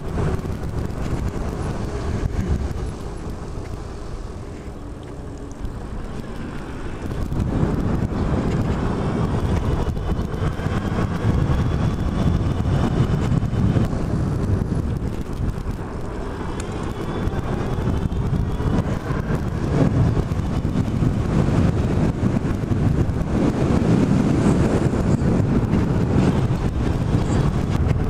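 Street traffic and wind on the microphone during a ride on an e-bike: a steady rushing noise that dips for a few seconds near the start and then holds even, with a few faint rising whines along the way.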